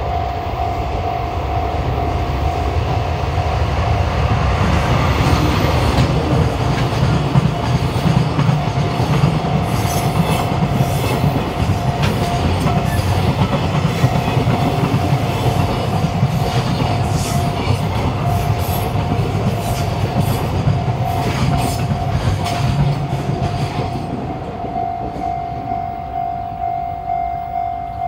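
A twin-engined DD51 diesel locomotive hauling a freight train past, its engines droning under a rising and falling rumble, with wheels clicking over the rail joints through the middle as the wagons go by; the rumble eases off about 23 seconds in. A steady high ringing tone sounds throughout and pulses rhythmically near the end.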